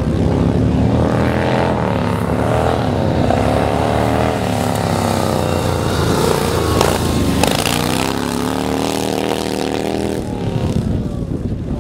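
Vintage pre-1954 motorcycle engines revving hard and easing off as the bikes race over a dirt track, the engine pitch rising and falling again and again. Two short sharp cracks come a little past the middle.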